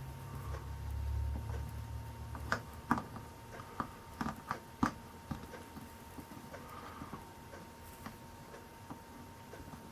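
Light taps and clicks of hand work on a stained glass panel during soldering: a quick cluster of about eight sharp ticks, over a faint steady electrical hum and a low rumble at the start.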